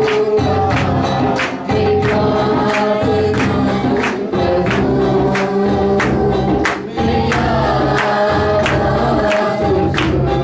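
Christian worship song: a choir singing together over a steady, evenly repeating drum beat.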